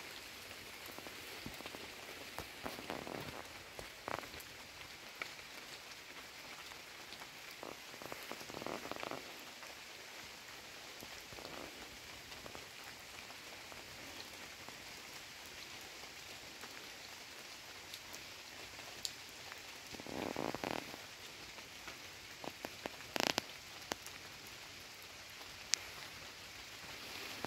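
Steady light rain falling, an even hiss of drops, with a few soft louder swells and some sharp clicks here and there, the loudest clicks near the end.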